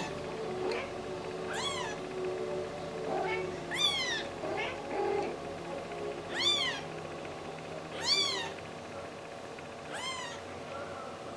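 A kitten meowing five times, short high-pitched mews that each rise and fall in pitch, spaced about two seconds apart.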